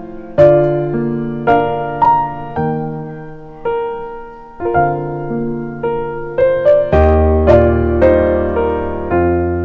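Background piano music: a slow run of struck notes and chords, each dying away, with a deeper bass line joining about seven seconds in.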